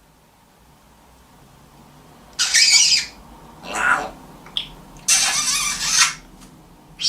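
African grey parrot giving three harsh, raspy squawks, the last one longest, after a couple of quiet seconds.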